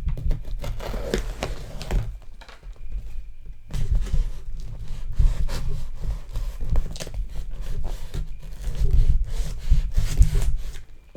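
A knife scraping and slicing through the packing tape of a cardboard box, in irregular strokes with tearing, rubbing and dull thumps as the box is handled.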